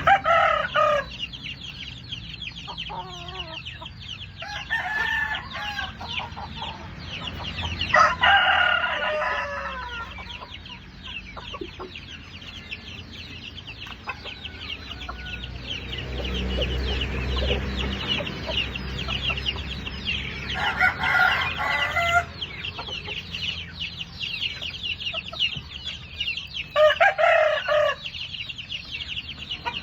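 Domestic chickens clucking and calling, with a rooster crowing several times, over a constant fast, high-pitched chirring.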